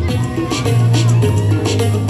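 Music with a deep bass line and a steady beat of about three strikes a second.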